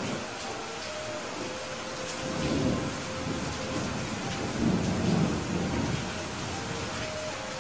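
Steady rain with low rolls of thunder, one swelling about two seconds in and a louder one around five seconds.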